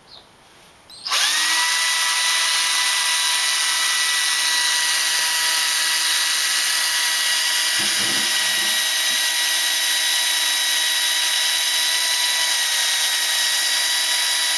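Black & Decker cordless drill spinning up about a second in and then running at a steady pitch, its bit boring into the oak head of a barrel.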